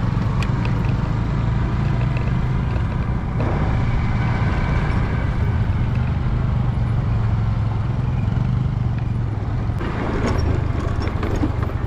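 Motorcycle engine running steadily while it is ridden along a rough dirt track, with a constant low hum and road noise. A few short clicks and knocks come near the end.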